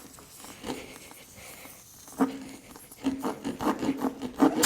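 Tire-repair reamer being pushed and twisted in and out of the puncture in a tubeless motorcycle tire, rasping against the rubber. A few faint scratches at first, then from about halfway a quick run of scraping strokes, about four a second, with a low squeak.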